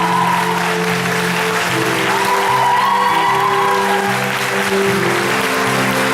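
Curtain-call music playing over steady audience applause.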